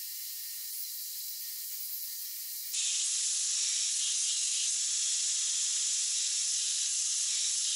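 Belt grinder with a 120-grit belt grinding a steel hammer face, heard as a steady high hiss. About three seconds in the hiss jumps suddenly louder and fuller and then holds steady.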